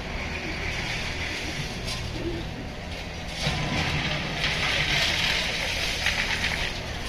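Machinery at a railway track-work site running with a steady engine hum and a hiss. The hiss grows louder about halfway through.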